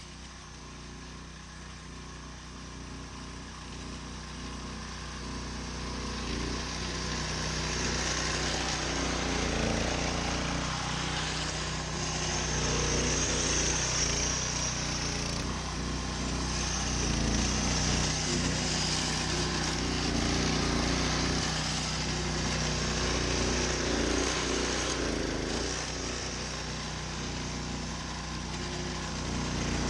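Small gasoline engine of a walk-behind slice seeder running steadily under load as the machine cuts seed slits through thatch, growing louder over the first several seconds as it comes close and staying loud.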